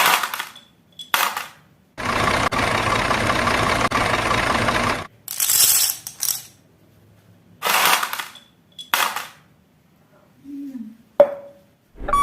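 Marbles rolling and clattering down a plastic marble-run track: one long even roll lasting about three seconds, then several shorter rattling runs, and a single sharp click near the end.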